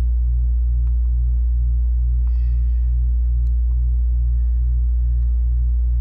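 Air-conditioning unit running as a loud, steady low hum with a throb that pulses about three times a second.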